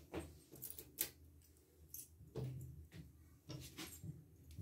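Faint scattered clicks and light taps of hands handling sandwich bread and wooden toothpicks on a stone counter, the sharpest about a second in, over a low steady hum.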